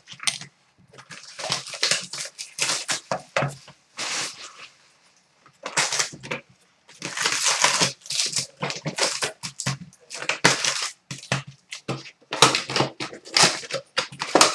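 Trading-card hobby box being opened by hand: its wrapping and cardboard crinkle and tear in quick clusters of crackles, and the card packs rustle as they are pulled out.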